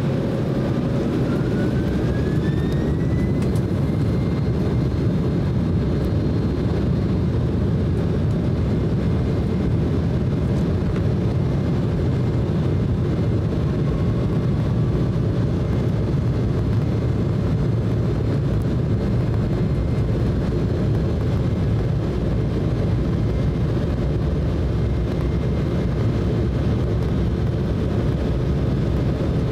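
Heard from inside the cabin, the Embraer E190's GE CF34-10E turbofan engines spool up to takeoff thrust. A whine rises over the first few seconds, then holds steady over a loud, even rumble as the plane begins its takeoff roll.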